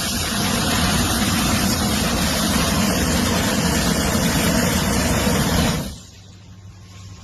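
A motor running steadily and loudly, cutting off abruptly about six seconds in, after which a faint low hum remains.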